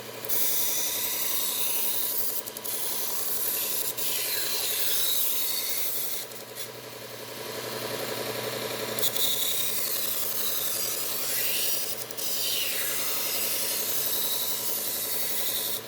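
Knife blades being ground on a 120-grit Cubitron belt running on a Bucktool slow-speed belt sharpener: a high grinding hiss in several passes a few seconds long with short breaks between, over the machine's steady motor hum.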